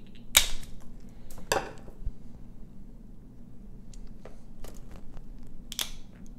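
Dungeness crab shell being cracked and pulled apart by hand: two sharp cracks about half a second and a second and a half in, then several smaller clicks and snaps.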